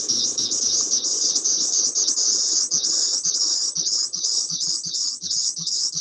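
Recorded courtship song of a Brood X periodical cicada: a high, buzzing call that pulses in quick, repeated phrases.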